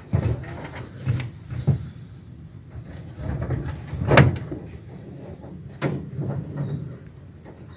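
Several dull knocks and bumps, the loudest about four seconds in, over a low rumble.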